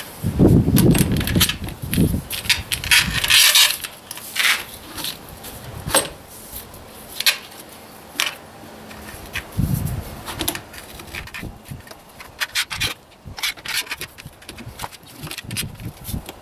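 Lexx slip-on muffler being shifted by hand in its mounting brackets on a Kawasaki KLR650: rubbing and scraping with scattered small knocks and clicks, the rubbing loudest near the start and again about ten seconds in.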